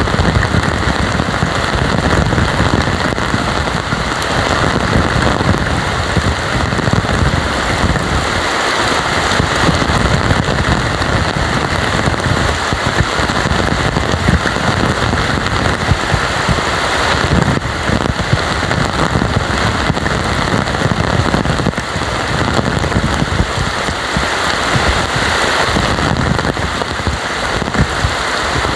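Heavy tropical rain pouring down, a loud, steady, dense patter of drops.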